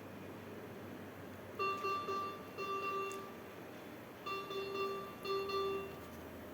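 Medical equipment alarm sounding in repeated groups of beeps on a single pitch, one group about one and a half seconds in and another about four seconds in, over a faint steady low hum.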